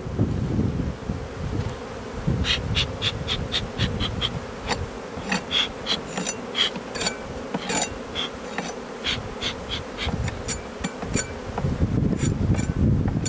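Honeybee colony humming steadily in an open hive. From about two seconds in, a run of short, sharp puffs and clicks from a bee smoker's bellows being pumped, at first about four a second, then more irregular.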